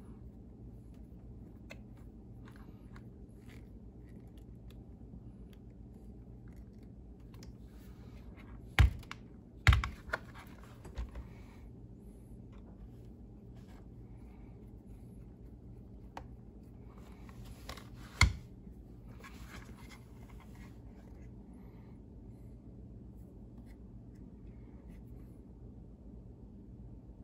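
Hands handling a plastic Traxxas Rally RC car chassis and a screwdriver on a workbench mat: light scraping and scattered small clicks, with a cluster of three sharp knocks about a third of the way in and another loud knock about two-thirds in. A steady low hum lies under it all.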